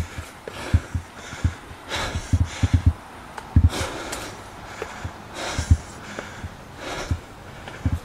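A man breathing hard in heavy puffs as he climbs steep concrete steps, out of breath from the ascent. Dull thuds of his footsteps on the steps come through under the breathing.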